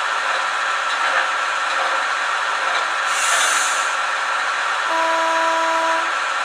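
Sound decoder of a Piko H0 model of a Kaluga (TGK2) diesel shunter, with the diesel engine running steadily. About three seconds in comes a short hiss of air, and near the end a single horn blast of about a second.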